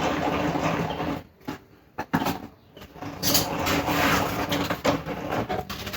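A machine running with a steady hum, stopping about a second in, a single click about two seconds in, then running again from about three seconds in.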